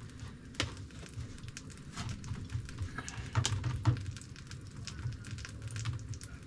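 Egg-dipped sourdough bread frying in melted butter in a pan, sizzling with irregular sharp crackles and pops over a steady low hum.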